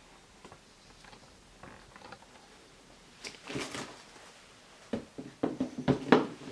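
Handling noises: a few short scuffs and rustles about three seconds in, then a cluster of them from about five to six seconds.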